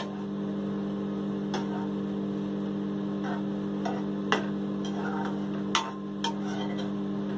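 A metal spoon stirring in a kadai of simmering masala, knocking sharply against the pan a few times, over a steady electrical hum.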